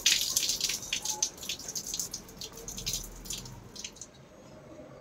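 Water poured from a small hand-held pot, splashing and dripping onto the ground in quick irregular splashes that thin out and fade near the end.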